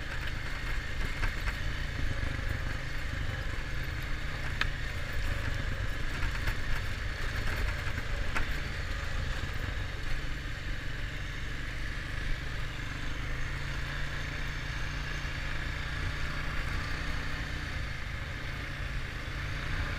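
Honda ATV engine running steadily on the trail, with a couple of brief knocks about four and eight seconds in.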